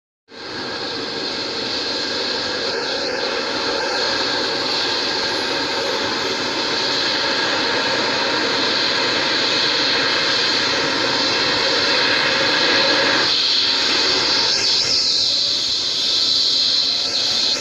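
Eurocopter EC135 rescue helicopter running on the ground, its twin turbine engines giving a steady high whine and hiss over the noise of the turning rotor, growing slightly louder.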